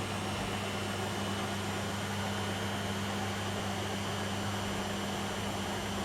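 Beko WM6255W washing machine running with a steady low hum over a soft even whir.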